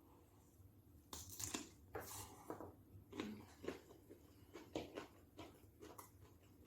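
Biting into and chewing a stuffed raw cucumber, crisp crunches close to the microphone, starting about a second in and coming irregularly a few times a second.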